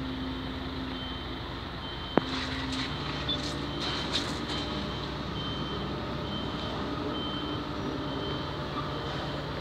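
Diesel engine of construction machinery running steadily, with a reversing alarm beeping about once every 0.7 seconds. There is a single sharp knock about two seconds in.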